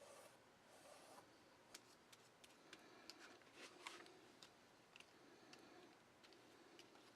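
Near silence, with faint scattered ticks and clicks and a light rustle in the first second or so.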